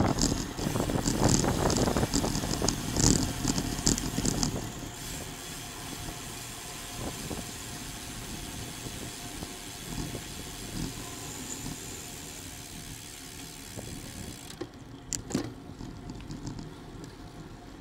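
Wind rushing over a bike-mounted camera's microphone, with tyre noise from a road bike riding at around 20 mph. It is loudest and gusty for the first five seconds, then settles to a quieter steady rush as the bike slows. A few sharp clicks come near the end.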